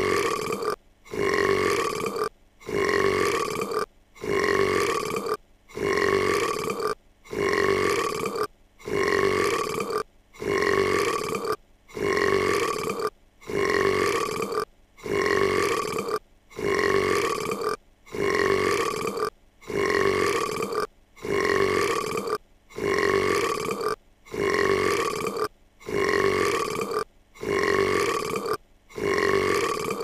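A cartoon girl's long, loud burp, the same burp repeated over and over at even intervals, each lasting about a second with a short silent gap between.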